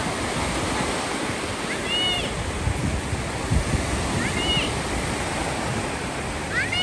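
Ocean surf washing in the shallows, a steady rush of breaking waves, with three brief high-pitched calls above it, about two seconds in, halfway through and near the end.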